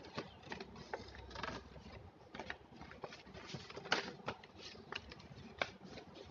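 Plastic snap-button document folder being handled and flapped open, giving irregular crinkles and clicks. The sharpest click comes about four seconds in.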